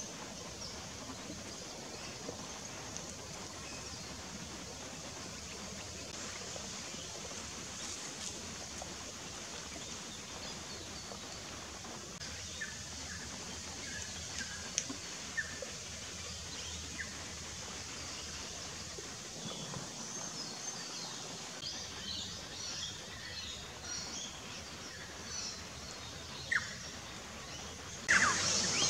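Scattered faint bird chirps over a steady background hiss of bush ambience. About a second before the end, louder, sharper bird calls start.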